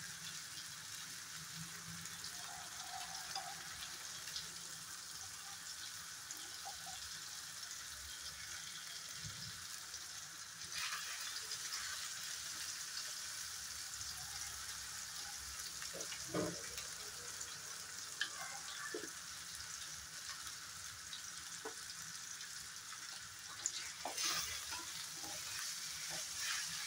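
Bottle gourd curry sizzling in a non-stick kadai with a freshly added spoonful of ghee, in a steady hiss. A steel spoon stirs through it, scraping and clinking against the pan now and then.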